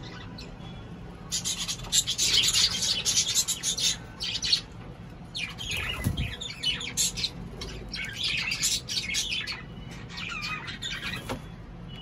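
Cockatiels calling in repeated bursts, starting about a second in and loudest over the next few seconds, with a few whistled notes near the end.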